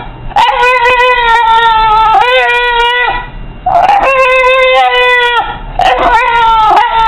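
English bulldog howling and whining in long drawn-out notes, about four in a row with short breaks, each held at a steady pitch and dropping off at the end.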